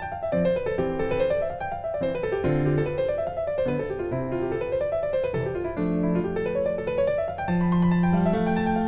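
Background piano music: quick runs of notes rising and falling about once a second over held lower notes.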